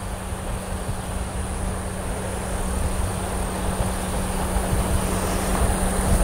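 Kintetsu Urban Liner limited express train running past on the rails, its rumble growing steadily louder. A steady high-pitched whine and a low hum run through it.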